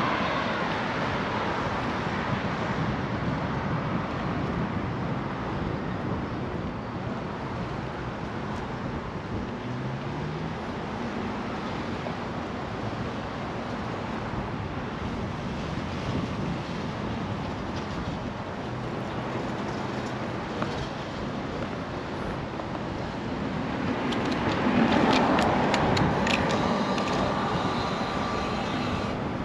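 Outdoor street ambience: a steady hiss of road traffic with the faint hum of passing vehicles. Near the end it grows a little louder and a run of small clicks and handling knocks comes in.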